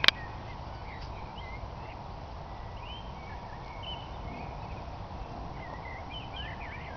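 Garden ambience: small birds chirping now and then over a steady low background noise, with one sharp click at the very start.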